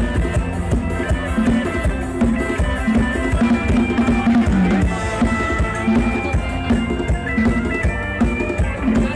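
Loud music with a drum kit and heavy bass, played through an outdoor PA sound system under test.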